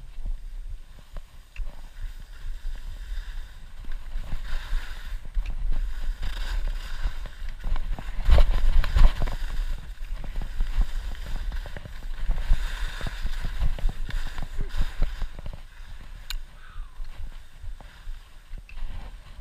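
Wind buffeting a body-mounted camera's microphone during a fast run down a groomed ski slope, a constant deep flutter, with edges scraping and hissing over packed snow in swells that come and go with the turns, loudest about eight to nine seconds in.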